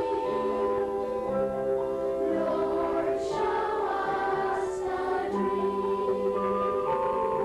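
Youth choir singing in harmony, holding long notes that change every second or so.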